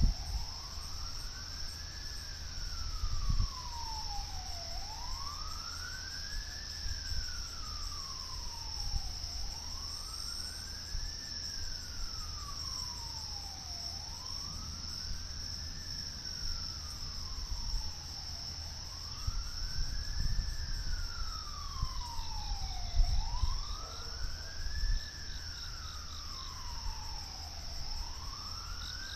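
Outdoor tornado warning siren sounding a wail, its tone rising and falling smoothly about every four and a half seconds. Insects chirr steadily behind it.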